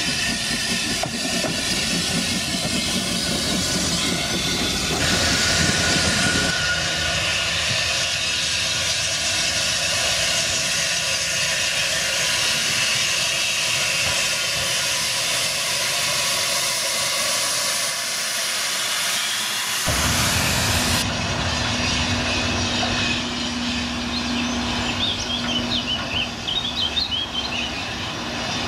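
Dunlop No. 6, a small 0-4-0 saddle tank steam locomotive, working past with its carriages: steam hissing and exhaust, with wheels clacking on the rails. About 20 s in the sound changes to the train heard going away, with a steady low drone and birds chirping near the end.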